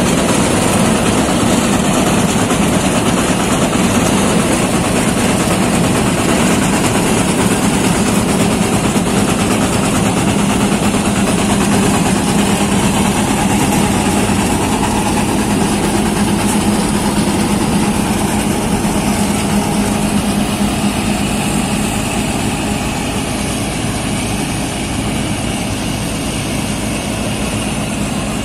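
New Holland TC5070 combine harvester running with its wheat header in alfalfa: a loud, steady drone of diesel engine and machinery, with an unbroken hum.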